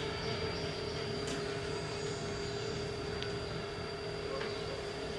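A steady background hum carrying two steady tones, one low and one high, with a few faint light clicks from small hand-tool work.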